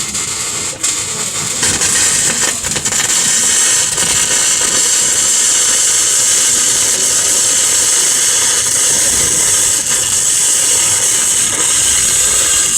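Flux-core wire-feed welder arc crackling and hissing steadily as a weld bead is run. The sound starts right away and settles into an even crackle within the first couple of seconds.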